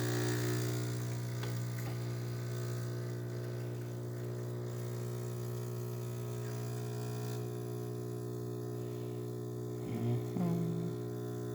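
DeLonghi Magnifica super-automatic espresso machine running a steady electric hum as it works through the start of an espresso shot. The hum cuts off abruptly at the very end.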